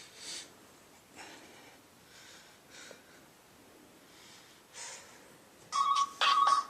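A man breathing heavily, soft breaths in and out about once a second. Near the end a much louder ringing starts, a steady high tone with sharp strokes.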